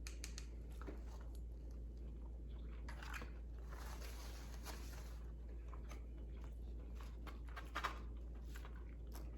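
A person biting into and chewing crispy food close to the microphone: soft mouth clicks, with a denser stretch of crunching about four seconds in.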